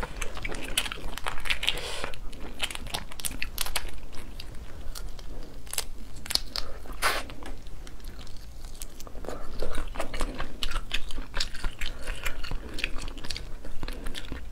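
Cooked crayfish shells cracking and being pulled apart by hand, close to the microphone, with crunching and wet chewing as the meat is eaten. It is a dense run of sharp little cracks and clicks.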